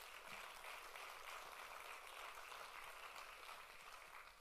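Congregation applauding, faint and steady, thinning out near the end.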